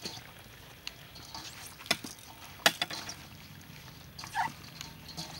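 Raw chicken wings and chopped chili being tossed by gloved hands in a stainless steel bowl: soft handling noises with scattered sharp clicks, the two loudest around two seconds and just under three seconds in. A short squeak comes about four and a half seconds in.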